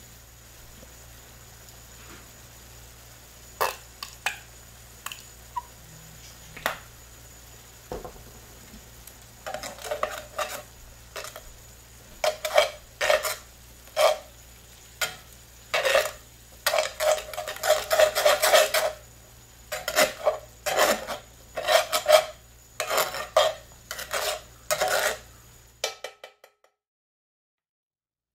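Spatula stirring beans in sauce in a cast-iron skillet, scraping against the pan. There are a few scattered scrapes at first, then rapid repeated strokes from about ten seconds in, and the sound cuts off abruptly near the end.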